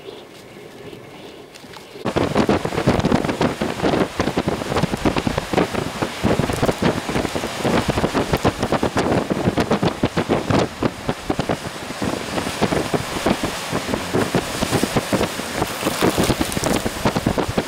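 Windstorm noise: strong gusty wind buffeting the microphone together with driven rain, cutting in abruptly about two seconds in after a quieter stretch.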